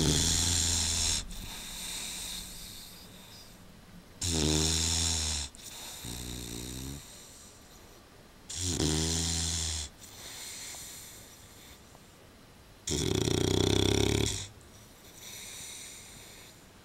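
Old English bulldog snoring: four loud snores about four seconds apart, each followed by a softer breath.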